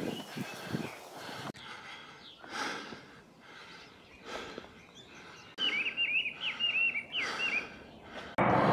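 A songbird singing a quick run of high, sharp chirping notes for about two seconds past the middle, over faint outdoor background noise. Just before the end a loud, steady rushing noise cuts in abruptly.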